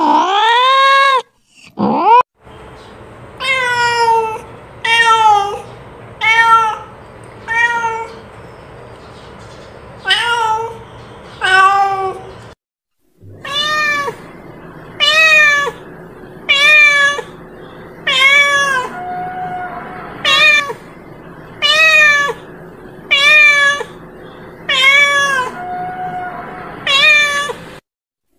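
A domestic cat meowing over and over: a long run of separate calling meows, each rising and then falling in pitch, with a short break about halfway and the calls coming faster, about one a second, after it.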